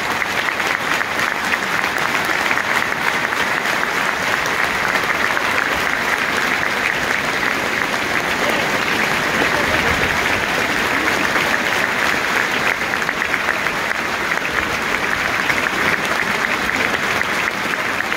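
A football stadium crowd applauding steadily and without break: a period of applause held in memory of a former player.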